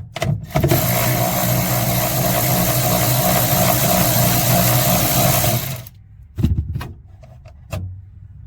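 Power drill turning an 8 mm socket, running steadily for about five seconds to back off a tail-light mounting nut. A few sharp clicks of tool and metal handling come before and after the run.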